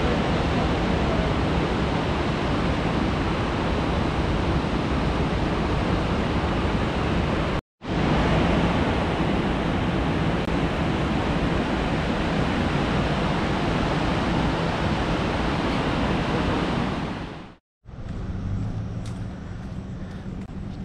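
Steady roar of Niagara Falls' falling water, broken off by two abrupt cuts about eight and eighteen seconds in. After the second cut there is a quieter rumble with a low hum.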